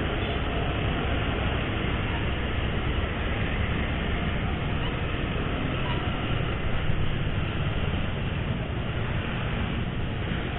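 Motorcycle on the move in city traffic: steady rush of wind and road noise on the microphone, with engine and traffic rumble underneath.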